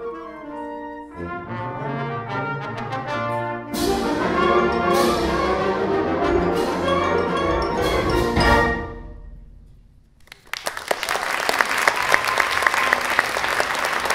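High school wind ensemble playing the closing bars of a piece, the full band with brass coming in loud about four seconds in; the music dies away about nine seconds in, and audience applause breaks out a second or so later.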